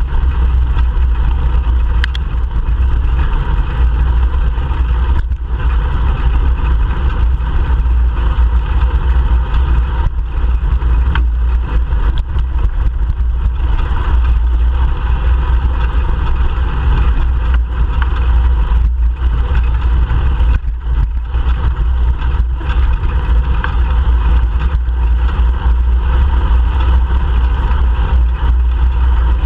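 Steady wind buffeting on a bike-mounted GoPro Hero 3 Black's microphone while cycling, a deep, constant rumble mixed with road and tyre noise.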